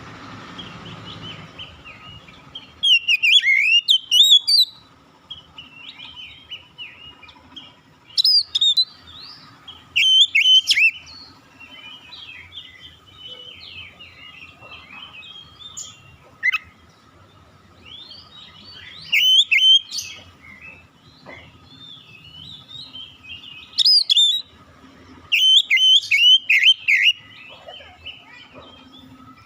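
Oriental magpie-robin (kacer) singing: loud, rapidly sliding whistled phrases every few seconds, with quieter scratchy chattering notes running between them. A faint steady hum lies underneath.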